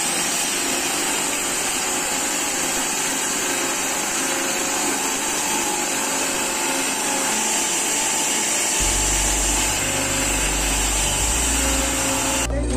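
Belt-driven electric quarry saw with a large circular blade cutting into black stone, water running over the cut: a steady, dense grinding with a high whine. A low rumble joins about nine seconds in.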